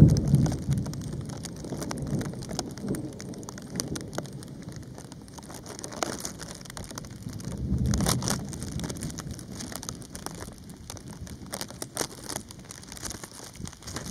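Thunder rumbling during a passing thunderstorm, loudest at the start and fading, then swelling again about eight seconds in. Light rain pattering and dripping throughout as scattered small ticks.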